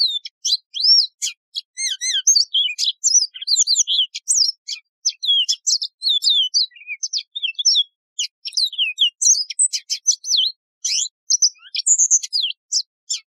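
Yellow-fronted canary singing: a long, fast, high-pitched song of varied chirps, slurred whistles and trills, with brief pauses, stopping just at the end.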